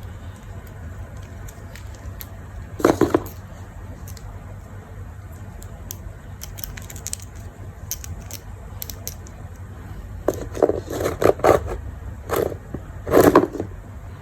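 Short bursts of scraping and rustling with faint scattered clicks over a low steady hum: one burst about three seconds in, and a run of several between about ten and thirteen and a half seconds in.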